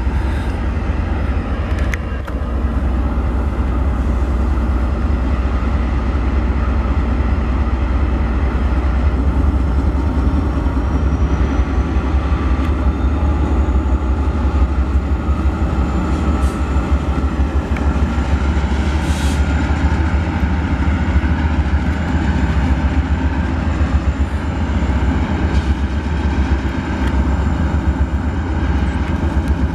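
Norfolk Southern diesel freight locomotives running as they pull a train of autorack cars slowly past, a loud steady low engine drone, with a faint rising whine about a third of the way through.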